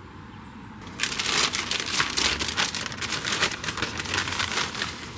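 Dry potting mix and orchid bark being handled and mixed for repotting: a dense, rustling crackle of bark chips and soil that starts about a second in.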